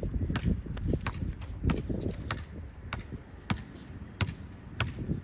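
Basketball being bounced on a court: a string of sharp knocks at uneven spacing, about two or three a second.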